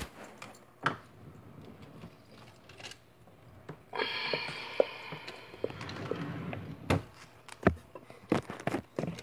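Wooden kitchen drawer being pushed in and pulled back out: a sliding, rustling stretch a few seconds in, and several sharp knocks of the drawer front against the cabinet near the end.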